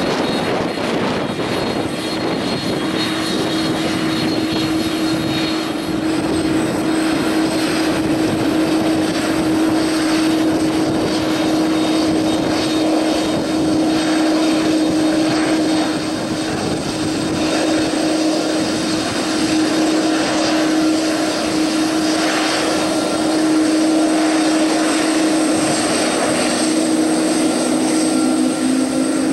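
Jet airliner engines running loudly, a steady unbroken noise with a constant droning tone underneath.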